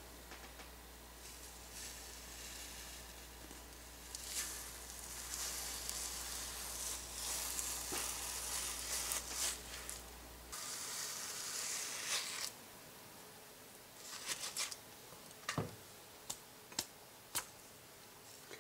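A metal ice cream scoop scraping through frozen ice cream in a plastic tub, a quiet rasping scrape that comes and goes over several seconds. Near the end come a few short clicks and taps as the scoops go into a glass bowl.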